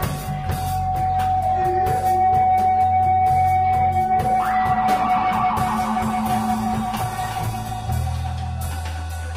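Live rock band playing: drums and bass under a long held high guitar note. The drum and cymbal hits come thick in the first half and thin out after about four and a half seconds.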